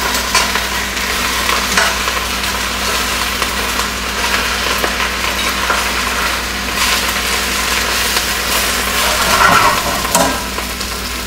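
Broccoli rabe sizzling in olive oil and a little water in a stainless steel sauté pan. It is turned over with metal tongs that click against the pan now and then.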